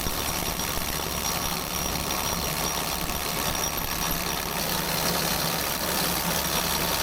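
Vehicle engine running steadily with a low hum, under an even rush of noise.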